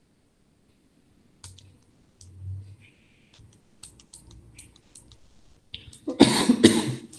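A man coughs into his fist near the end: two quick, loud coughs. Before it there are a few faint clicks.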